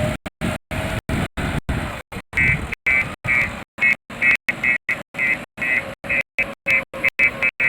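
Backhoe loader engine running, its sound chopped into rapid stuttering cuts several times a second, with short high pitched tones joining in about two seconds in.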